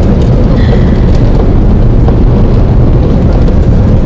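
Loud, steady rumble of road and wind noise in a moving car's cabin, heaviest in the low end, with a few faint clicks.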